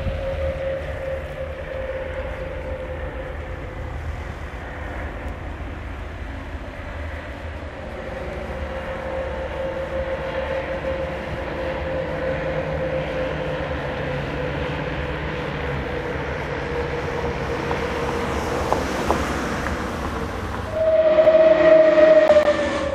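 Four Pioneer 200 light propeller aircraft flying in formation, their engines making a steady drone. About 21 seconds in the drone grows suddenly louder and slides down in pitch as the formation passes overhead.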